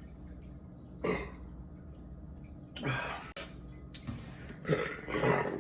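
A man burping: a few short throaty bursts about two seconds apart, with breaths between.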